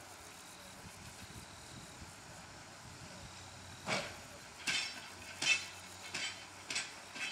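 Footsteps crunching on loose gravel track ballast, starting about halfway through and coming roughly every two-thirds of a second, over a faint low steady hum.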